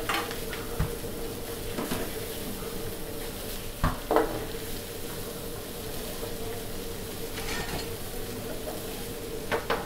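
Stir-frying: cooked rice and diced vegetables sizzling in a hot oiled pan as they are stirred, with a spatula knocking against the pan a few times, twice in quick succession about four seconds in and again near the end. A steady hum sits underneath.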